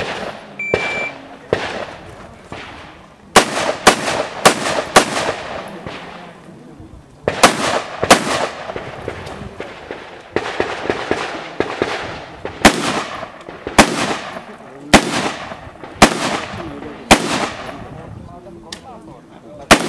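Rifle fire at a practical shooting stage: a short high electronic beep about half a second in, typical of a shot-timer start signal, then a fast string of about six rifle shots, a pause, three more, and from about halfway on single shots roughly once a second, each with a ringing echo.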